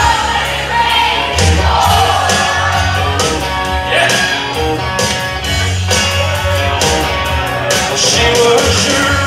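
Live band playing a country-rock song: electric guitar, bass and drums with a male singer.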